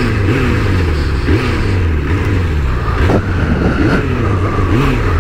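Suzuki Bandit inline-four motorcycle engine heard from the rider's camera, its revs repeatedly rising and dropping as the throttle is worked while filtering slowly between queued cars.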